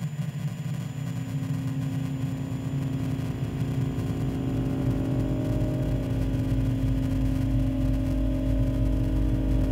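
Electroacoustic music made of sustained drones: a held tone enters about a second in over a low pulsing rumble, a second, higher tone joins about halfway, and the deep rumble swells as the whole grows gradually louder.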